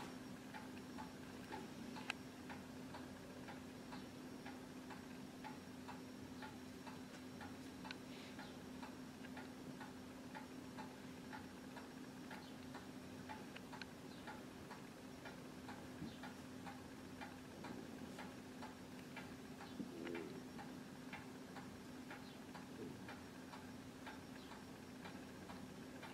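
Faint, steady ticking of a clock, about two ticks a second, over a low steady hum.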